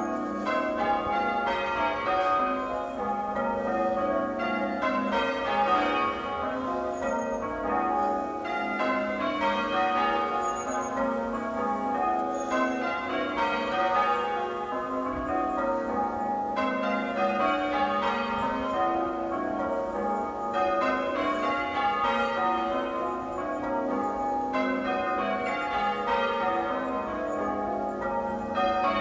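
Church tower bells ringing a peal in change ringing: a continuous, even stream of overlapping bell strikes, the order of the bells shifting from row to row.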